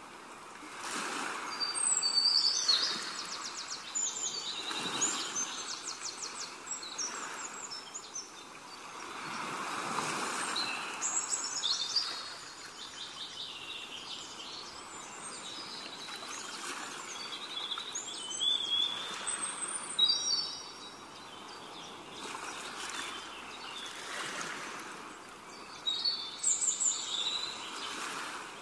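Small birds chirping and trilling in short bursts over a soft rushing background noise that swells and fades every few seconds.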